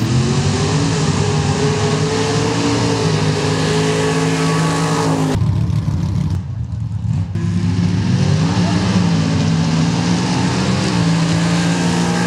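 Sand drag racing vehicles' engines running at high revs down the strip, the pitch climbing as they accelerate and then holding high. The sound breaks off about five seconds in, and a second run's engine comes up and climbs again about two seconds later.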